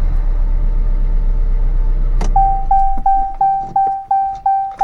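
2017 Jeep Cherokee engine idling, then a click about two seconds in, after which the engine sound dies away. A dashboard warning chime starts beeping, about three beeps a second.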